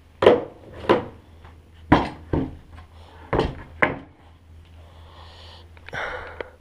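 Chainsaw-sawn wooden boards being set down and shifted on wooden sawhorses: sharp wooden knocks in three pairs, each pair about half a second apart, then a softer rubbing sound near the end.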